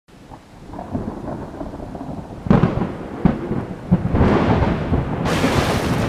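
Thunderstorm with rain: low thunder rumbling and building, sharp cracks around the middle, then a louder, longer rolling crash with a bright hiss near the end.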